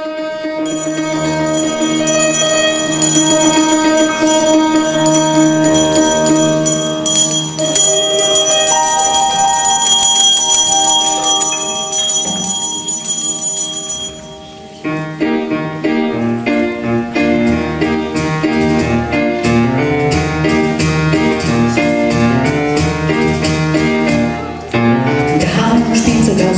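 Live small jazz band music with piano, double bass, saxophone and hand percussion. It opens with about 14 seconds of slow, held notes, then the full band comes in with a steady rhythm and walking bass, and a woman's singing starts near the end.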